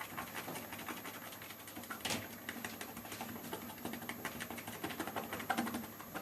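Shaving brush being swirled fast in a shave mug, working Williams mug soap and hot water into lather: a rapid run of small clicks and wet scrubbing as the bristles pass over the ribs on the mug's bottom.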